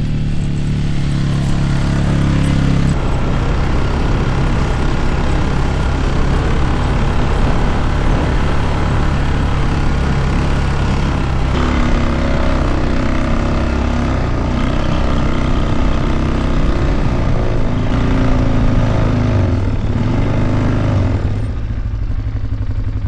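A motor vehicle's engine running steadily under way, its pitch shifting a few times.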